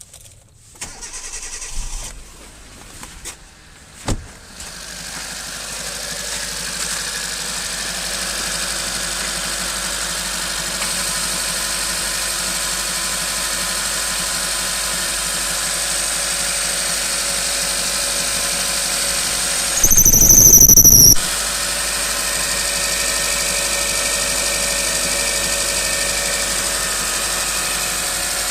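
Hyundai Getz 1.1-litre four-cylinder petrol engine started from cold after a few clicks, then running steadily at idle. About 20 seconds in, a loud, high squeal lasts about a second; the owner puts it down to the toothed belt, which is already tight and which silicone spray has hardly helped.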